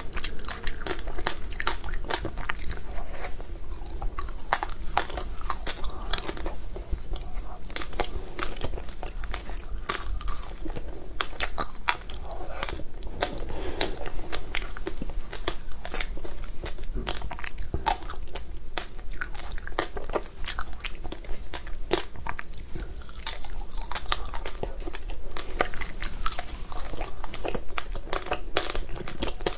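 Close-up crunching of frozen ice bars coated in matcha powder, bitten and chewed, as a dense, continuous run of crisp cracks and crunches.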